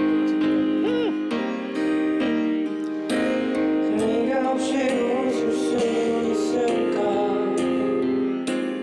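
Piano chords accompanying a man singing a slow ballad in Korean into a microphone, the sung melody coming in strongly about four seconds in.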